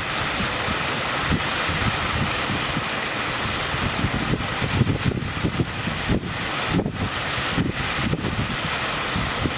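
Steady rushing and splashing of water jets from a floating jet venturi aerator, with wind buffeting the microphone in irregular low rumbles.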